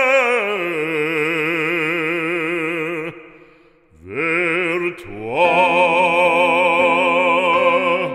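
Operatic singing: a solo voice with wide vibrato holds one long note, breaks off about three seconds in, then swells into another long held note.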